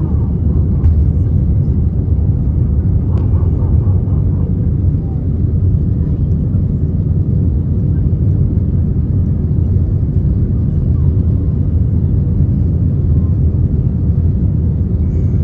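Steady low rumble of an Airbus A320-214's CFM56 turbofan engines and airflow heard inside the passenger cabin on take-off.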